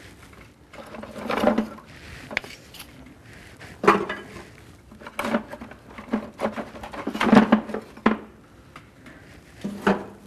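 Sticks of split dry cypress kindling knocking and clattering as they are laid by hand into a wood stove's firebox: irregular knocks of wood on wood and on the stove's metal, about eight clear ones.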